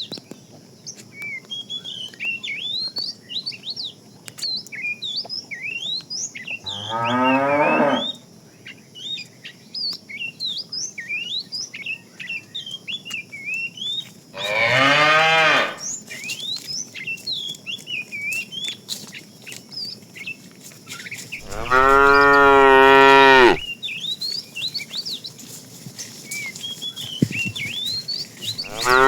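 Cattle mooing: three long moos about seven seconds apart, the first two falling in pitch and the third the longest and loudest, with a fourth starting at the very end. Birds chirp steadily in the background.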